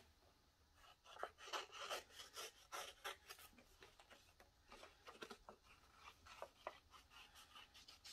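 Scissors cutting through cardstock: faint, irregular snips with the rustle of the paper being handled.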